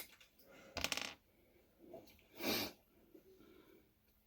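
Small clicks and a light metallic clink as little connectors are popped off the wires of an RV light switch, with a short rustle about halfway through.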